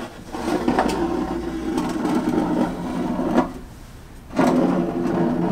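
Small electric motor in the display case running in two spells, about three seconds and then about two seconds, with a steady hum as the model is raised up out of the box.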